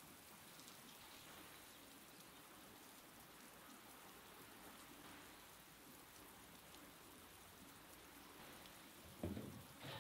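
Near silence with a faint steady patter-like hiss. About nine seconds in comes a short metal clatter as a wire rack and metal tray are handled.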